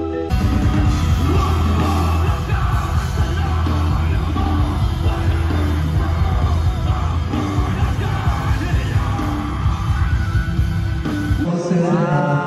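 Loud live rock band playing, with a singer shouting over heavy bass and drums. It cuts in suddenly just after the start and breaks off sharply near the end.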